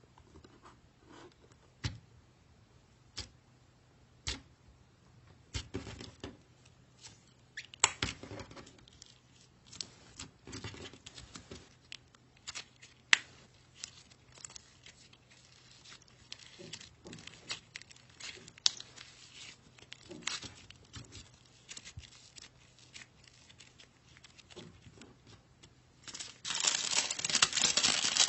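Slime being squished and stretched, making scattered sticky clicks and pops, with a louder stretch of dense crackling near the end.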